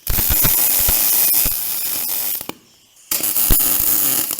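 Electric arc welding: two tack welds, each a steady crackle and sizzle of the arc peppered with sharp pops, the first lasting about two and a half seconds and the second starting about three seconds in.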